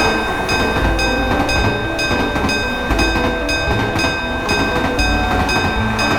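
Train sound effects from an animated railway crossing: a train running past with a low rumble, overlaid by a steady high tone and short high pips repeating about twice a second.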